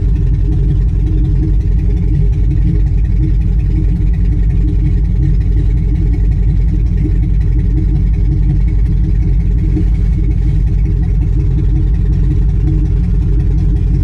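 2005 Chevy Tahoe's 5.3-litre V8 running steadily at idle, a little loud with no exhaust past the Y-pipe and catalytic converters. It is misfiring on cylinders 1, 3 and 7, which the mechanic traces to a faulty bank one oxygen sensor making it run rich.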